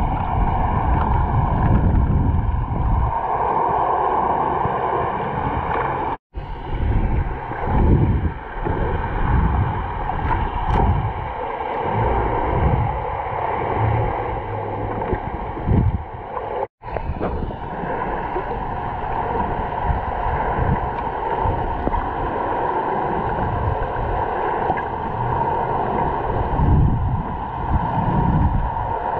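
Muffled underwater sound through a submerged camera's microphone: water rushing and sloshing against the housing, with a steady hum over it. It cuts out briefly twice.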